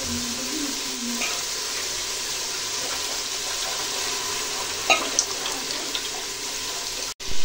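Hot oil and masala sizzling in a pressure cooker as a little water is poured in from a steel mug, with a couple of light clicks about five seconds in.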